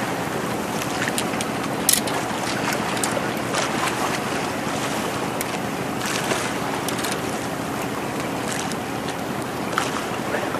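Seawater lapping and splashing against the rocks of a breakwater, a steady wash broken by scattered sharp ticks and splashes, the sharpest about two seconds in.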